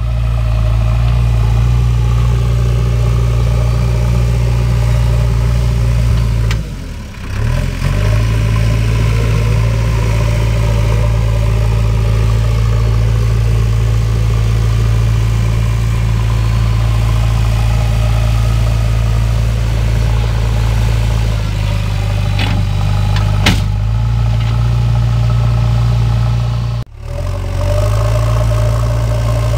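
JCB backhoe loader's diesel engine running at a steady pitch as the machine drives and levels soil with its front bucket. The sound drops out briefly twice, about seven seconds in and near the end.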